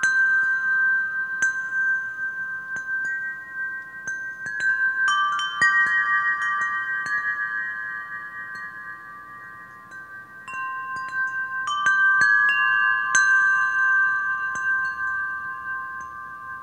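Chimes ringing: bell-like tones struck one after another and left to ring on over each other. They thin out and fade about halfway through, then a fresh cluster of strikes comes in from about ten and a half seconds.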